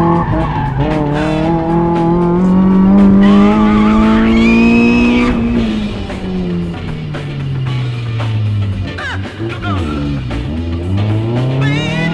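Mazda Miata's 1.8-litre four-cylinder engine pulling hard with revs climbing, a brief tyre squeal about four seconds in, then the revs falling off to a low note before climbing again near the end. Funk music plays over it.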